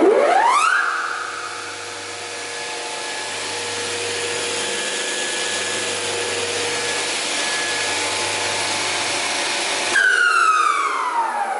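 Spindle moulder (wood shaper) switched on and spinning up with a quickly rising whine, running free at speed with no wood being cut, then switched off about ten seconds in and winding down, the whine falling steadily in pitch.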